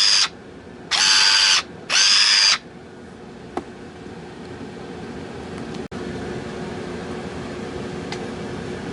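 Black & Decker cordless pruning shear, fitted with welded-on crimping jaws, running its motor in two short whines about a second apart, each lasting under a second, as the jaws are worked. A faint click follows a second later.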